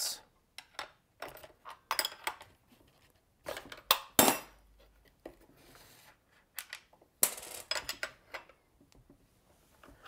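Metallic clinks and knocks of an open-end wrench against the two locked nuts on a chainsaw bar stud as they are worked loose, irregular and spread out, the loudest knocks coming about four seconds in.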